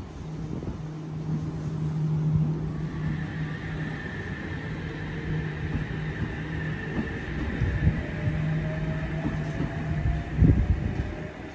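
Sydney Trains double-deck electric train moving along the track, its traction equipment giving a steady low hum and a whine that slowly rises in pitch over the last few seconds. A louder low rumble comes about ten seconds in.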